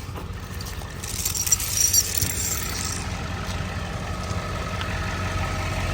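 Metal tow chain rattling and clinking for a couple of seconds as it is hooked up, over a vehicle engine idling steadily.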